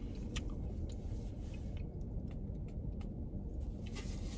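Steady low rumble of a car heard from inside its cabin, with a few faint clicks of takeout packaging and a plastic spoon.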